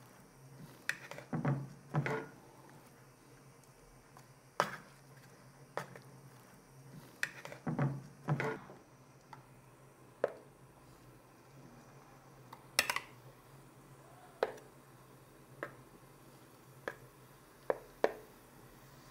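Kitchen utensils knocking and clicking against a bowl and pan as vegetable sticks are dipped in batter for frying: about a dozen separate knocks spread unevenly, with two short bursts of busier handling, over a faint steady low hum.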